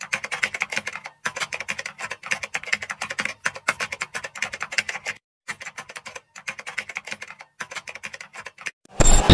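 Typewriter-style typing sound effect: rapid key clicks in runs broken by short pauses. Loud electronic music starts suddenly near the end.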